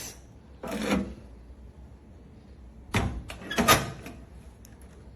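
Metal door of a small digital keypad safe being handled and shut. There is a bump about a second in, then two loud clunks around three seconds in, the second the loudest, followed by a few light clicks.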